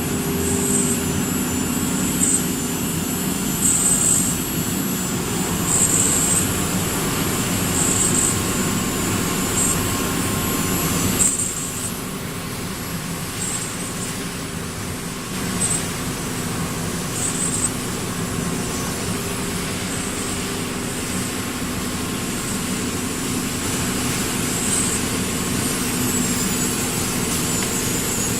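CNC nesting router running, with a steady machine drone and short high-pitched bursts about every two seconds. About eleven seconds in, part of the noise drops away and the bursts become sparse.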